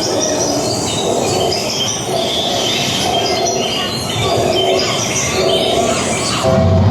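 Many birds chirping over a steady, noisy background.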